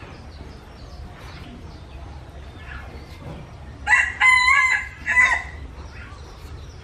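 A rooster crows once, about four seconds in: a loud call of about a second and a half in three parts. Faint taps of a cleaver slicing on a wooden chopping board lie under it.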